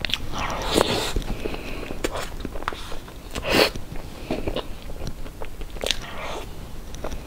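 Close-miked mouth sounds of a person eating soft cream cake: biting and chewing with short clicks, louder about a second in and again about three and a half seconds in.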